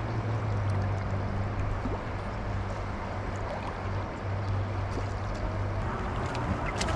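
A motor running with a steady low hum under a rushing noise, the hum easing off about six seconds in. A few sharp clicks come near the end.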